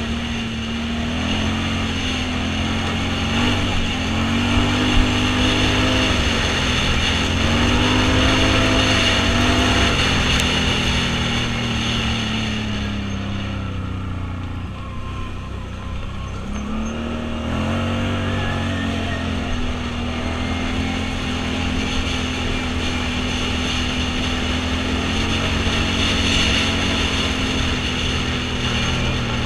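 Vehicle engine running under way, its pitch rising and falling again and again as the vehicle speeds up and slows. It eases off and drops lower for a few seconds about halfway through, then picks up again.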